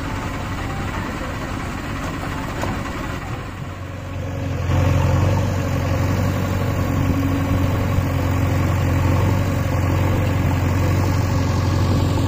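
Tractor diesel engine running steadily, then louder about four and a half seconds in, with a stronger low hum that holds to the end.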